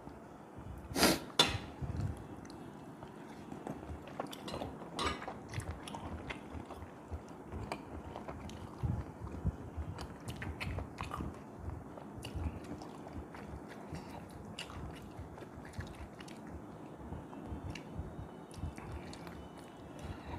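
A person chewing and biting soft food, with many small wet mouth clicks. Irregular louder sharp clicks come about a second in, again shortly after, and near five seconds.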